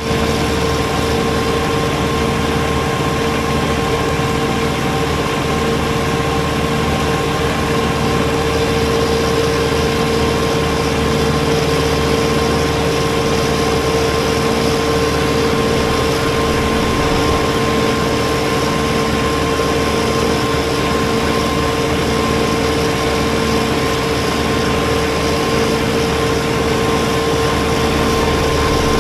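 Kubota BX23S compact tractor with a front-mounted snowblower running steadily: the small three-cylinder diesel runs under an even, unchanging high whine.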